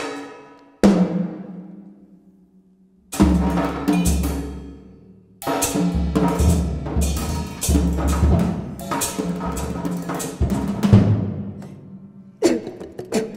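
A contrabass flute and drum kit playing together: struck drums and cymbals over low held tones. A loud hit about a second in rings away into a brief lull, dense drumming picks up again about three seconds in, and a sharp new attack comes near the end.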